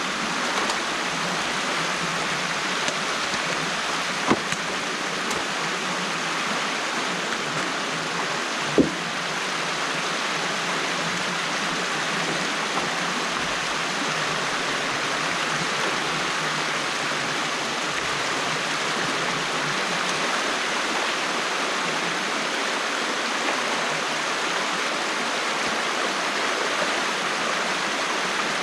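Water flowing steadily through a breached beaver dam, a constant rushing. Two brief knocks stand out, about 4 and 9 seconds in.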